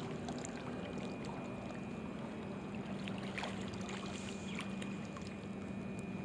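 Steady quiet lakeside ambience: small waves lapping at the bank under a steady low hum, with a few faint ticks.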